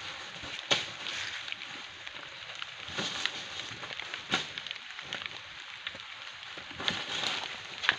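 Dry leaf litter rustling and crackling, with a few sharp snaps, as a Komodo dragon and the goat it has caught shift about in the leaves.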